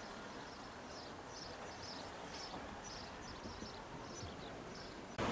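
Faint outdoor background hiss with short high chirps repeating two or three times a second.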